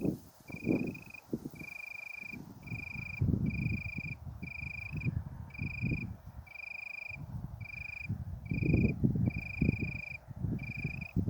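Wind gusting in a forest, buffeting the microphone in uneven swells. An even, high chirp repeats about three times every two seconds throughout.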